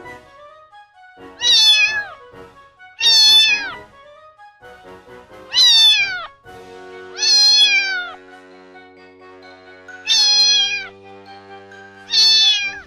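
A domestic cat meowing six times, about every two seconds, each meow falling in pitch. Soft background music with held notes plays under the later meows.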